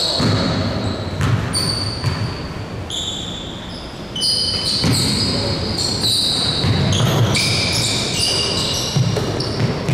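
Basketball play on an indoor court: the ball bouncing, with many short, high sneaker squeaks on the floor throughout.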